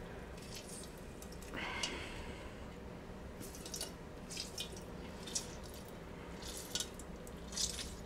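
Lemon halves squeezed by hand over a pot of water: juice dripping and splashing into the water in faint, scattered drops.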